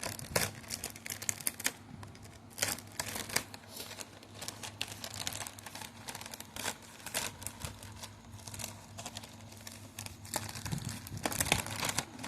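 Packaging being handled and torn open by hand: irregular crinkling, crackling and tearing, with many short sharp clicks and rustles over a faint steady low hum.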